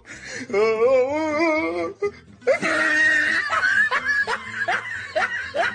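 A wavering, wobbling voice-like sound for about two seconds, then, after a short pause, a run of laughter: repeated rising 'ha's.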